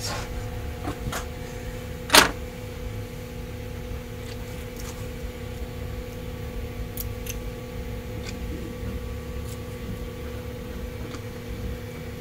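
Quiet bench work: a steady electrical hum with a sharp click about two seconds in and a few faint ticks as small parts and tools are handled while the locomotive is greased.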